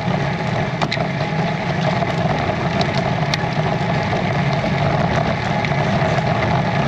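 Steady rush of wind and tyre noise from a road bike riding along a lane at about 10 mph, with a few light clicks.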